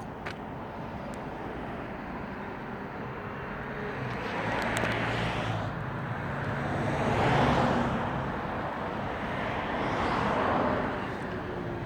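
Road traffic: vehicles passing one after another, each a swell of tyre and engine noise that rises and fades, three times.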